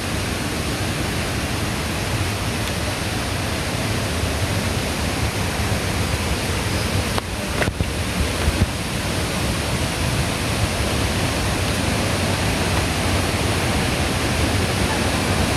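Steady rushing of a waterfall, an even wash of water noise that grows slightly louder toward the end, with a few brief knocks around the middle.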